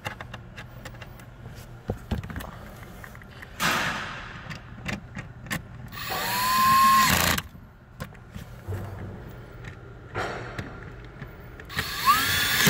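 Cordless drill-driver with a T25 Torx bit driving screws into a plastic interior trim panel. It runs in about four short bursts, the longest, about a second and a half, near the middle. Its motor whine rises as it spins up, and faint handling clicks fall between the bursts.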